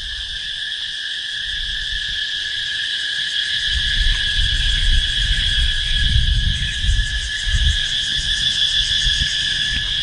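Insects droning steadily at a high pitch, with a low, irregular rumble underneath that grows from about three and a half seconds in.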